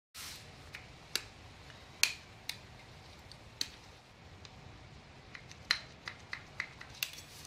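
Putty knife scraping old gasket remnants off an air compressor's metal plate: a string of short, irregular scrapes and clicks as the blade catches on the plate.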